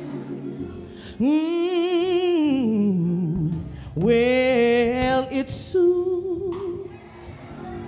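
A woman singing a slow gospel song solo, holding long notes with wide vibrato; one long note slides downward about a third of the way through.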